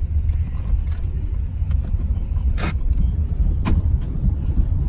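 Steady low rumble of a moving car heard from inside the cabin, with two sharp clicks about a second apart near the middle.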